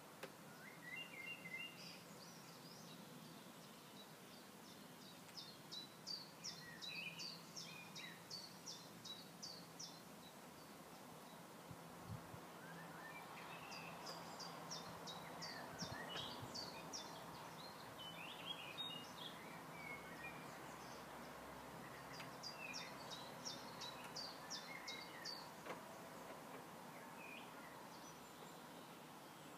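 Faint birdsong: three runs of quick, high repeated notes, with scattered lower chirps between them, over a faint steady low hum.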